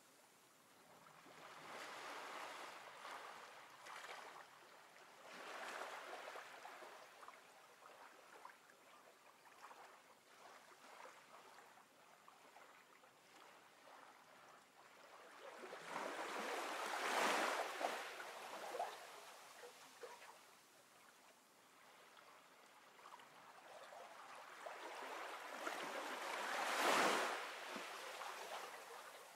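Ocean waves washing in and drawing back, in slow swells that build and fade over several seconds, two of them larger: one about halfway through and one near the end that cuts off sharply.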